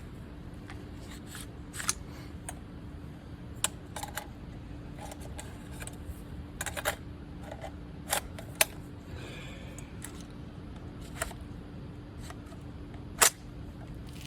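Scattered metallic clicks and clacks of an AR-15 rifle's action being worked by hand to clear a jam after a round failed to cycle, the sharpest click near the end.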